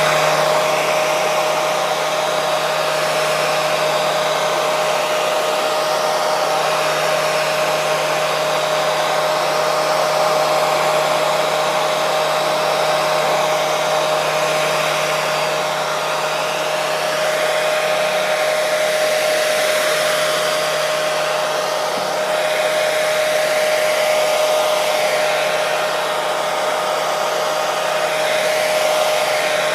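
Electric hair dryer running continuously: a steady rush of blown air with a constant motor whine, wavering slightly in tone.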